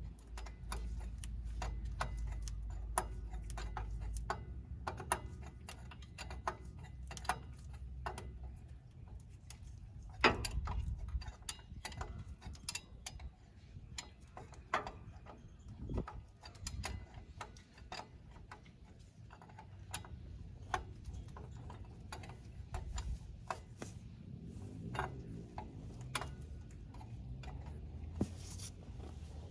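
Irregular light metallic clicks and taps of hand tools working on a van's driveshaft fittings, with a sharper knock about ten seconds in and another near sixteen seconds.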